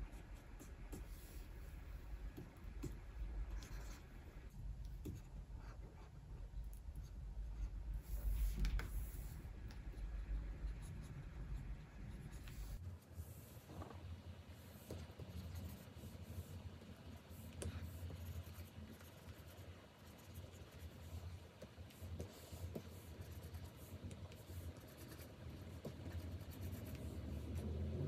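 Stylus nib on a Wacom Cintiq 24 Pro pen display, scratching and tapping across the screen in short drawing strokes: a continuous run of small scrapes and ticks.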